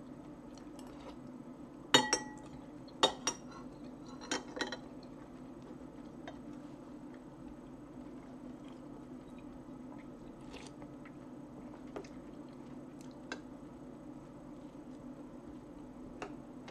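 Cutlery clinking and tapping against a soup plate while eating: a cluster of sharp clinks about two to five seconds in, then only a few soft taps. A steady low hum runs underneath.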